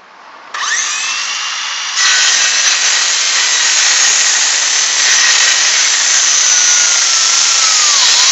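Cordless circular saw spinning up with a rising whine about half a second in, then cutting across a wooden rafter board from about two seconds in, the blade's steady sawing noise over the motor. Near the end the motor's pitch sags under the load, which the user puts down to the battery getting low.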